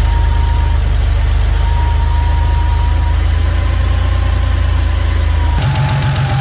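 Porsche Carrera 3.2's air-cooled flat-six engine idling, with a thin steady high tone over the engine note. About five and a half seconds in, the engine sound changes and the tone drops a little in pitch.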